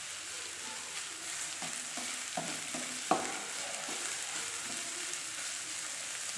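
Chopped vegetables sautéing and sizzling in a non-stick frying pan as a silicone spatula stirs and scrapes them, with a few sharper knocks of the spatula against the pan, the loudest about three seconds in.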